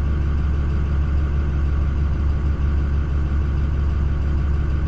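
Steady, unchanging low drone of a motor vehicle's engine and running noise.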